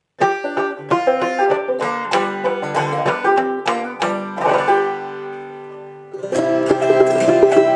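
Clawhammer banjo picking the hymn's instrumental intro, plucked notes ringing and dying away about five to six seconds in, then the playing picks up again, fuller and louder, near the end.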